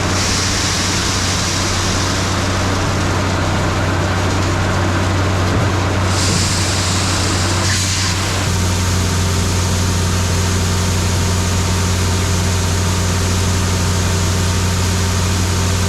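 Diesel engine running steadily at a constant speed with a broad hiss over it: farm machinery working while corn is unloaded into a grain auger's hopper. The hum changes slightly about eight and a half seconds in.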